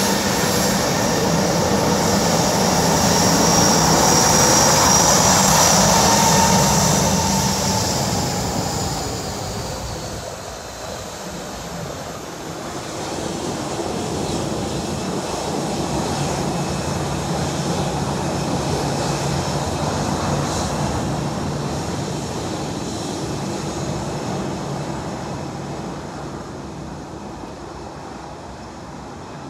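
Boeing 737-700's CFM56-7B turbofan engines whining at taxi power as the airliner passes close by, loudest a few seconds in and then falling off. A second, lower swell of engine noise comes about halfway through as it turns away, exhausts towards the listener, then fades.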